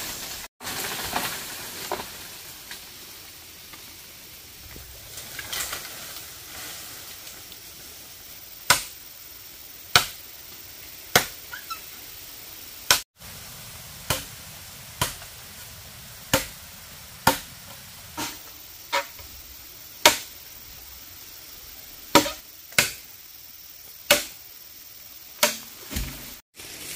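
A series of sharp blows of a hand tool on bamboo, roughly one a second, starting about nine seconds in after a few scattered fainter knocks.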